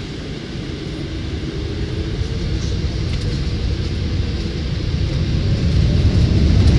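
Jet airliner heard from inside the cabin on its takeoff roll. A low engine and runway rumble with a steady hum grows steadily louder.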